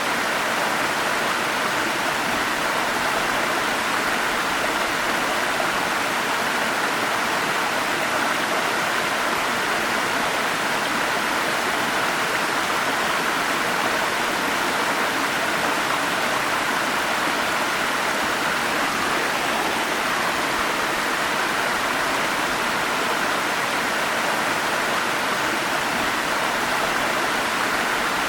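Steady rushing of water in a forest stream tumbling over small falls, an even hiss strongest in the upper-middle range with no breaks or changes.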